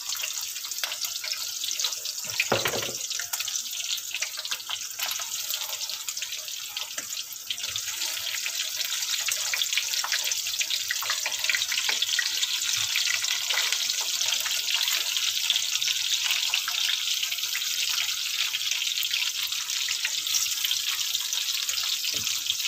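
Mince-stuffed bitter gourds sizzling and crackling as they fry in hot ghee in a karahi, growing louder about a third of the way in as more gourds go in. A single knock about two and a half seconds in.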